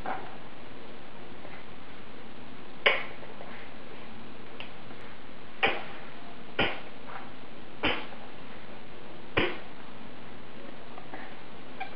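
Toddler drinking from a plastic sippy cup: about five short, sharp sucking and swallowing sounds, spaced unevenly a second or more apart, over a steady background hiss.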